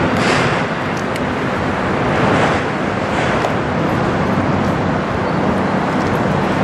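A fishing boat's engine running as it motors past, a low steady drone under a loud, even rushing noise.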